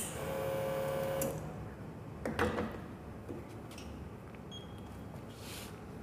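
La Marzocco espresso machine: a click, then its pump hums steadily for about a second as the group head is flushed. A knock follows about two and a half seconds in, and a short faint beep sounds near the end.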